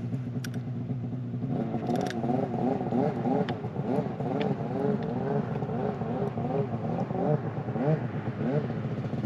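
An engine running steadily; about a second and a half in its pitch begins to waver up and down over and over, with a few faint clicks scattered through.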